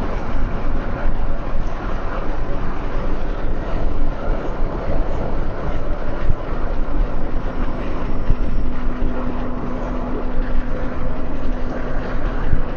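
Steady road and engine noise heard from inside a moving car. A faint steady hum joins about halfway through.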